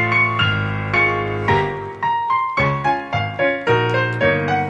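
Background music: a piano-like keyboard piece, notes struck in a steady pulse about twice a second over held bass notes.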